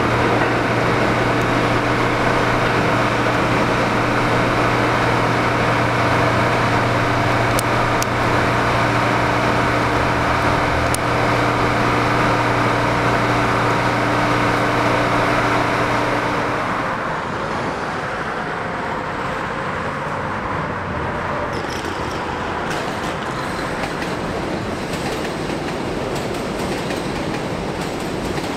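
Budd R32 subway train pulling out of an underground station: a steady rumble with a hum for about seventeen seconds. Then the sound changes suddenly to a quieter open-air road-traffic noise.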